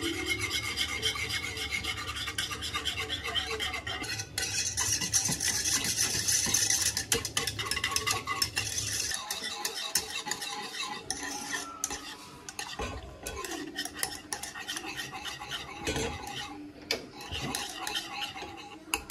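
Metal wire whisk stirring glutinous rice flour and water in a small nonstick saucepan, with rapid continuous scraping and clinking strokes against the pan as the mixture thickens into a rice-flour paste.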